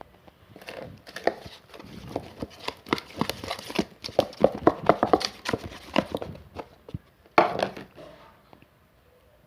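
Slime being squished and worked by hand, a dense irregular run of wet clicks and pops, with one louder squelch near the end.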